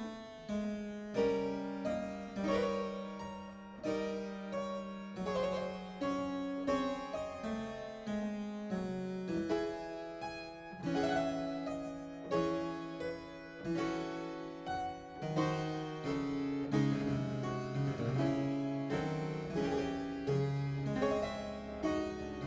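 Music: a harpsichord playing a melody of quickly fading plucked notes over a slower-moving bass line.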